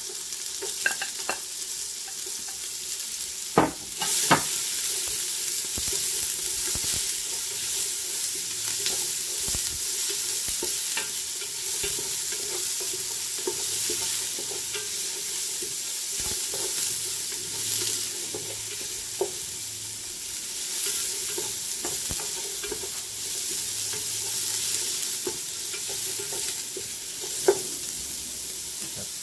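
Garlic and onion sautéing in olive oil in a hot pan, sizzling steadily while being stirred, with a few sharp knocks of the utensil against the pan.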